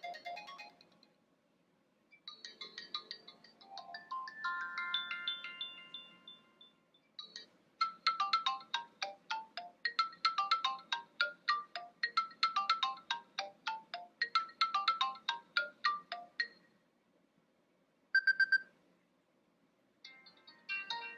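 A run of iOS 7 ringtones previewed one after another, electronic melodic tones with short gaps between them. One fades out at the start, one climbs in a rising run of notes, a long one repeats quick short notes, a single brief tone sounds near the end, and another begins just after.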